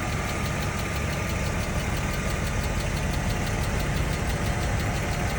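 BMW M50B25 straight-six idling with a rapid, regular ticking clatter over the engine note: hydraulic lifters knocking, which the owner puts down to worn lifters that knock once the engine is hot.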